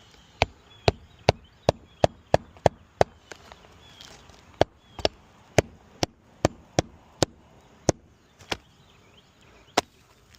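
Hammer driving a roofing nail back through asphalt shingles, a run of sharp strikes about two to three a second, in several bursts with short pauses between them.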